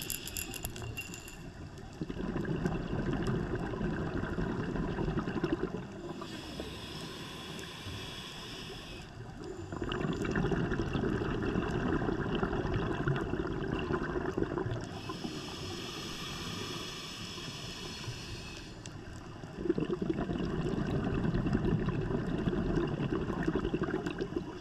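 Scuba diver breathing through a regulator, heard underwater. Three slow breath cycles: each starts with a hiss as the diver inhales, then a few seconds of bubbling as the exhaled air vents from the regulator.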